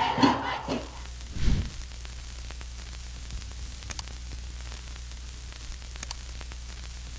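Music and voices fade out in the first second, and a low thump follows. After that comes a steady faint hiss over a low hum, with two light clicks about four and six seconds in, from a subscribe-button sound effect.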